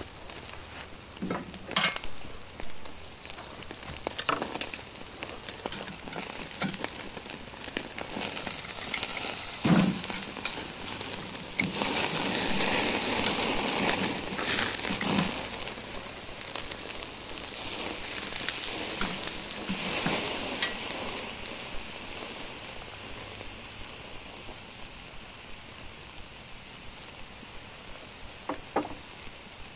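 Tomahawk ribeye steak sizzling and crackling as it sears directly over hot charcoal on a wire grill grate: the final high-heat sear of a reverse sear. The sizzle grows louder for several seconds midway, when tongs turn the steak, and a few sharp metal knocks of the tongs on the grate cut through it.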